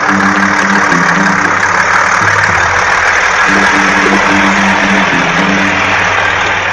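A heavy machine's engine running steadily, a loud drone with a steady hum that drops away for about a second near the middle.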